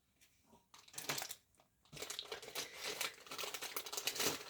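Crinkling and rustling of packaging being handled, in irregular little crackles and clicks. A short spell comes about a second in, and it runs almost without a break from about two seconds in.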